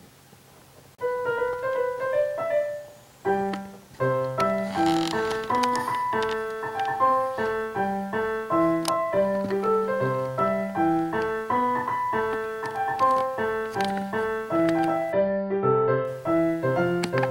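Bright piano-like keyboard music. A short melodic phrase starts about a second in, breaks off briefly, then carries on as a steady tune with a bass line.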